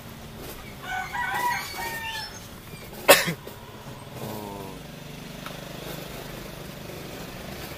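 A rooster crowing once, about a second in, followed just after three seconds by a single sharp loud knock. A car engine then idles with a steady low hum.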